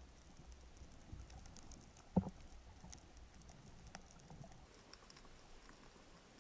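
Underwater ambience: faint, irregular crackling clicks throughout, with one dull thump about two seconds in.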